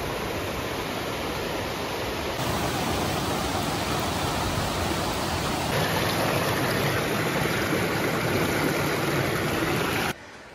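Mountain creek rushing over boulders: a steady, full rush of water that shifts slightly in tone twice and cuts off suddenly near the end.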